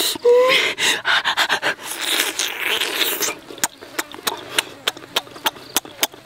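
A man chewing cooked squid noisily with his mouth open: a long run of wet smacking clicks, dense at first and then about three or four a second, with a short rising 'mm' near the start and breathy noise over the first few seconds.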